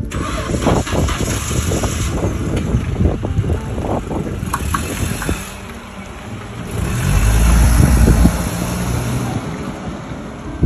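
A sedan car moving slowly past close by, with heavy wind buffeting on the microphone that is strongest about seven to eight seconds in.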